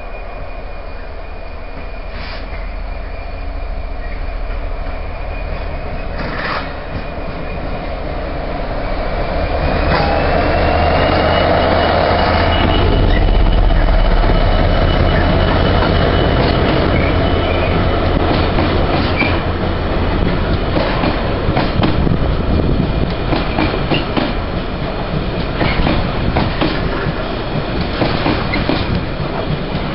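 Class 66 diesel locomotive, with its EMD two-stroke V12 engine, approaching and passing close by. The low engine rumble swells to its loudest about halfway through, with a thin high whine over the same stretch. Then a train of empty flat wagons runs past, its wheels clattering steadily over the rail joints.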